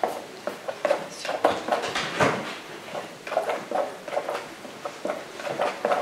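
Scattered light clicks, taps and scrapes of oil-painting tools being handled as paint is picked up from the palette.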